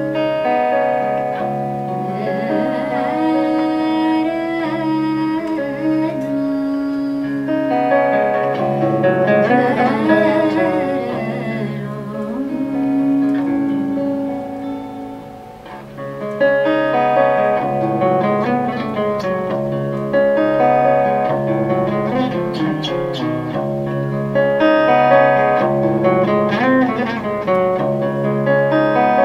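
Live jazz group playing: guitar and piano with a woman singing, the whole band dipping briefly about halfway through before coming back in.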